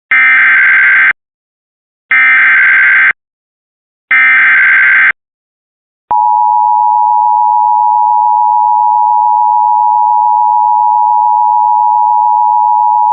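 Emergency Alert System SAME header: three one-second bursts of rapid warbling data tones, a second apart. Then, about six seconds in, the steady two-tone attention signal starts, opening a severe thunderstorm warning.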